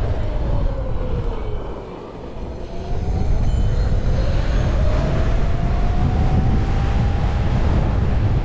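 Electric unicycle hub motor whining, its pitch following the speed: it drops as the wheel slows about two seconds in, then climbs steadily as it speeds up again. Heavy wind rumble on the microphone runs under it.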